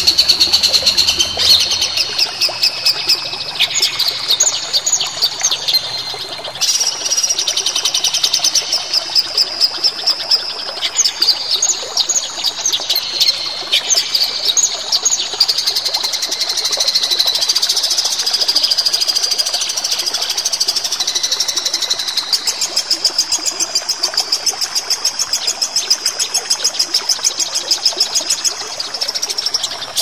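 Songbird song: fast, high-pitched chirps and trills repeated in quick rattling runs, continuous and dense, with the phrases shifting pitch every few seconds.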